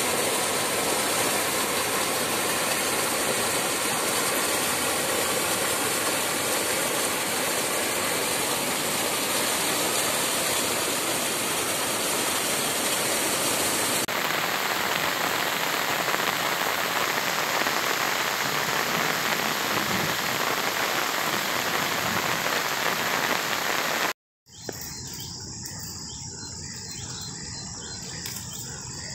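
Heavy rain and floodwater rushing down a swollen stream: a loud, steady rushing noise. Just after 24 seconds it drops out briefly, then returns quieter, with insects chirring steadily over the water.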